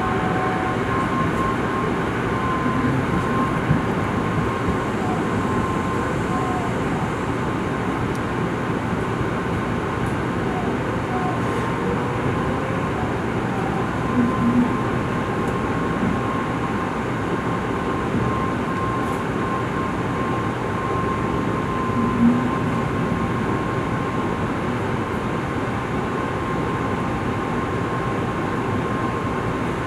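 Steady running noise of a Shinkansen train, with a thin high tone running alongside and a couple of brief louder bumps.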